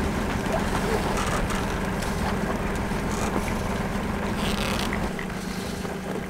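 A sailboat's inboard engine running steadily as the boat motors under the half-hoisted mainsail, with wind and water hiss over it. The low rumble drops away about five seconds in.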